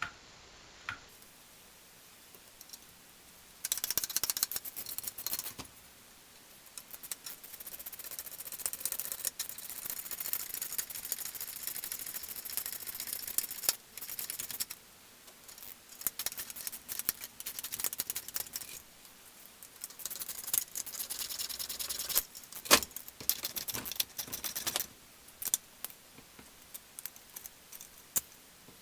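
Ratchet wrench clicking in long, rapid runs with short pauses as bolts are driven in and tightened, with a few sharper knocks near the end.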